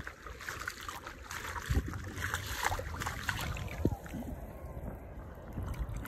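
Shallow seawater splashing and sloshing around a person's feet and hand as they wade and reach into the water, with a couple of dull thumps.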